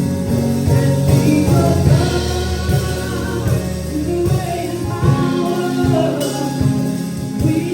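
Gospel choir singing with band accompaniment: bass and a steady drum beat under the voices.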